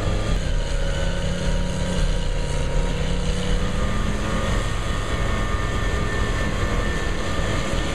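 Loader-mounted snowblower running steadily as its auger chews into a snowbank and throws the snow into a dump truck, with the heavy diesel engines running under load.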